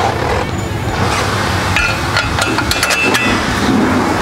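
Sharp metallic clinks and taps, a few of them ringing briefly, as a steel bolt and spindle hardware are worked into a UTV's suspension arm; they cluster between about two and three and a half seconds in.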